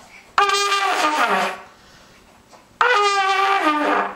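Trumpet blown by a young child: two loud, unsteady blasts of about a second each, each holding one note and then sagging lower in pitch at the end.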